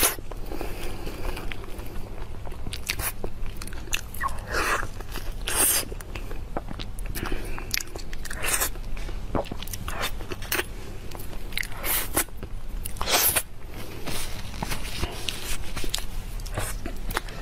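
A person eating durian flesh: chewing and biting mouth sounds, with short clicks and smacks at irregular intervals.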